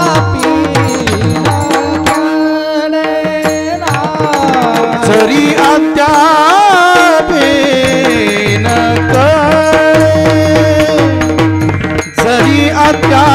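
Bhajan-style Indian devotional music: a male voice holds long, wavering ornamented notes without words over a steady drone and regular tabla strokes.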